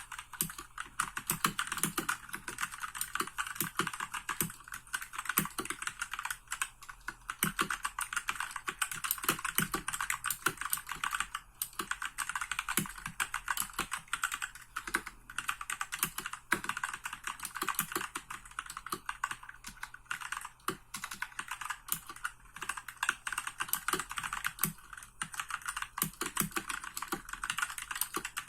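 Royal Kludge RK68 65% mechanical keyboard with brown switches being typed on quickly: a continuous stream of key clacks, many keys a second.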